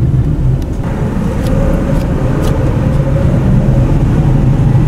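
Steady low rumble of a car's engine and tyres heard from inside the cabin while driving in traffic.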